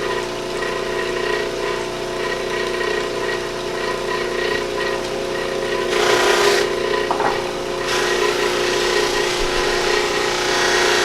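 Electric buffing wheel running with a steady motor hum while a piece of deer antler is pressed against it to polish, making a rubbing hiss that swells about six seconds in and again near the end.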